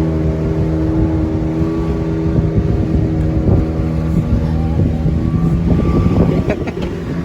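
Motorboat engine running steadily at speed over choppy water, with rushing water and wind noise. About six and a half seconds in, the engine's steady tone drops away and a few sharp knocks are heard.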